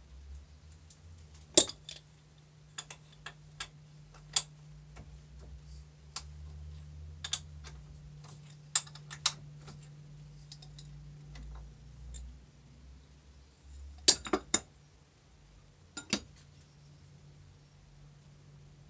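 Sharp metallic clinks and taps at uneven intervals as steel parts and tools are handled at a lathe's tool post and carriage, over a low steady hum. The loudest clinks come about a second and a half in and a quick cluster of three at about fourteen seconds.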